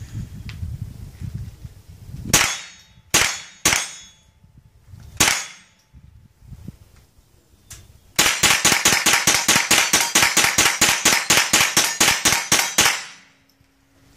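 Rifle gunfire: four single shots spaced a second or so apart, then a rapid string of shots at about eight a second that lasts nearly five seconds and stops abruptly.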